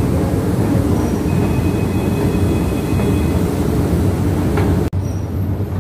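Loud, steady low rumble of machinery in a railway station, heard while riding an escalator. A faint high whine sits over it from about a second in to past three seconds, and the sound drops out for an instant near the end.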